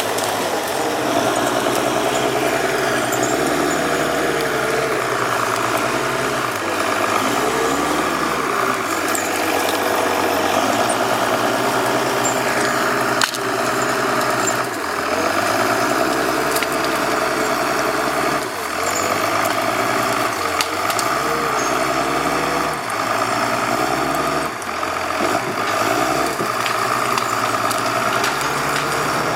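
Heavy diesel engine of a forestry skidder working under load, its revs rising and falling again and again, with a single sharp knock about halfway through.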